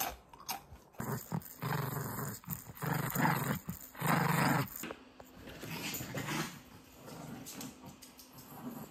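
Small white dog growling in play as it bites and tugs at a toy held out by hand, in several loud bursts over the first half, then quieter.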